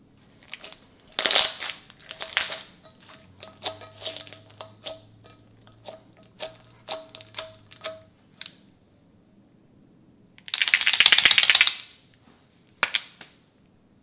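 Orange slime being stretched, folded and pressed with the fingertips, making a run of sharp pops and clicks. Later comes a dense burst of rapid crackling about a second and a half long, then one more click.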